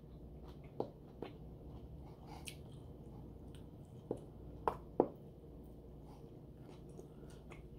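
Faint close-up chewing of a rice-paper spring roll: soft wet mouth squishes with a handful of sharper clicks and smacks scattered through.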